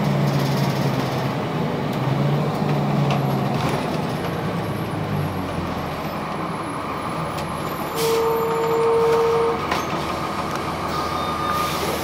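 Interior ride noise of a 2002 Blue Bird CS transit bus: the Cummins ISC diesel engine pulls with a strong engine note for the first few seconds, then fades. About eight seconds in comes a short burst of air, followed by a steady beep lasting about a second and a half.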